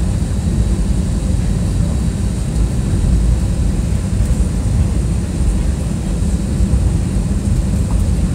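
Airplane cabin noise: the steady, loud low rumble of the airliner's engines and rushing air, heard from inside the passenger cabin.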